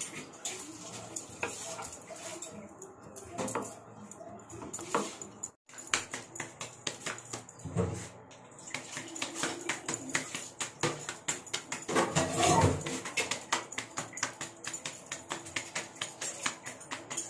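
Dishes and utensils clinking at a kitchen sink, then a quick run of slaps as roti dough is patted flat between the palms.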